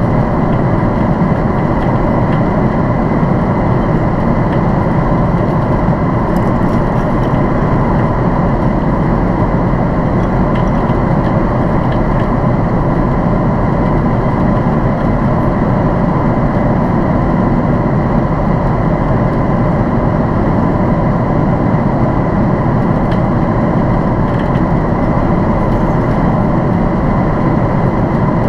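Steady cabin noise inside a Boeing 767-400ER airliner: engine and airflow rumble with a faint constant high tone, unchanging throughout.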